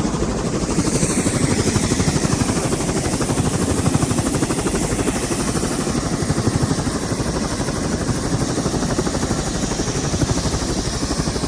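Helicopter running, its rotor blades chopping in a fast, steady beat over the engine noise.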